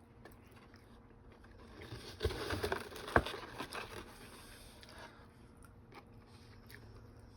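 Close-up eating sounds while eating a Dairy Queen Blizzard: quiet chewing, with a few seconds of scraping and rustling in the middle that include a sharp click about three seconds in.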